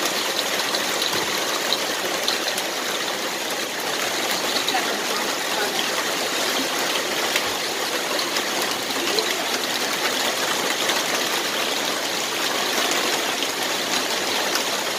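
Heavy rain pouring down steadily, with runoff streaming off a roof edge onto wet pavement.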